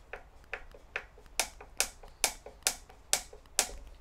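Hand Phillips screwdriver driving a long wood screw into a pre-drilled hole in a wooden bench leg, making a sharp click with each turn, about two a second. The clicks get louder about a third of the way in, as the screw tightens.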